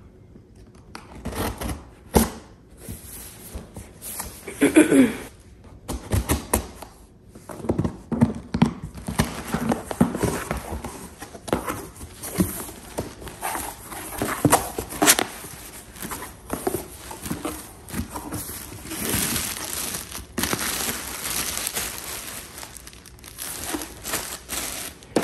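Cardboard shipping box being opened by hand: packing tape being cut and torn, flaps pulled open, and paper and an insulated liner rustling and crinkling. There are scattered sharp clicks and knocks, and a longer stretch of rustling later on.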